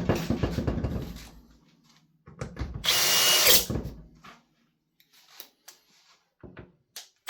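Clatter of the leaf blower being tipped over, then a power drill-driver runs for about a second and a half, driving a bolt into the blower's housing, followed by a few small handling clicks.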